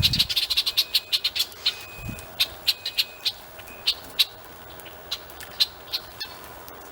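Many short, sharp bird calls in quick succession from a flock at a seed feeding spot, densest in the first second and a half and then thinning out, with a few brief thin whistles among them. A single soft low thud about two seconds in.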